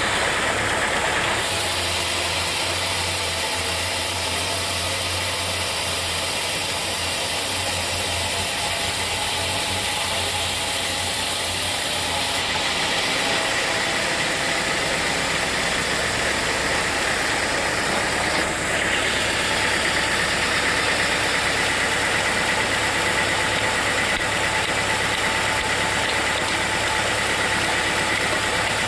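Sawmill machinery running with a steady mechanical drone. Its tone shifts a few times, about a second in, around twelve seconds in and again near nineteen seconds.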